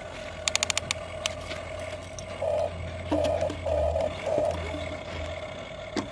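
Small electric gear motors of radio-controlled toy construction vehicles whining, surging louder in several short spurts, with a quick run of plastic clicks near the start.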